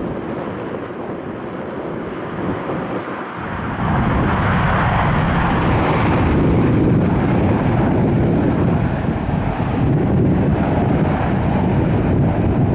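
Airliner engine noise, a steady rushing rumble that grows suddenly louder about four seconds in and stays loud.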